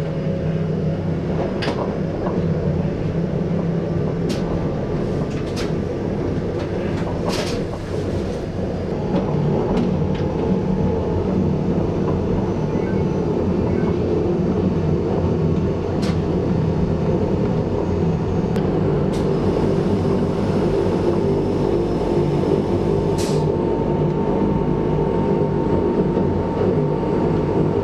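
Electric mountain rack-railway train running, heard from inside the carriage: a steady hum and whine from the motors and gearing, with occasional sharp clicks and knocks from the wheels on the track.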